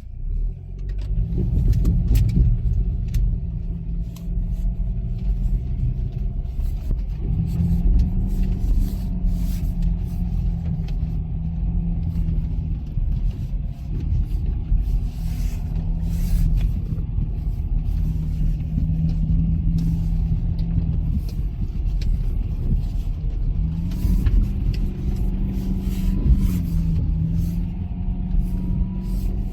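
BMW X3 (E83) SUV driving off-road: the engine note rises and falls several times over a heavy low rumble, with scattered short clicks and knocks.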